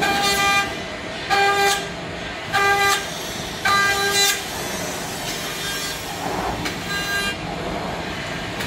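High-speed cutting spindle of a 5-axis CNC trimming machine working a plastic luggage shell: a high, pitched whine in four short spells about a second and a quarter apart, then a fainter one near the end, over a steady mechanical hum.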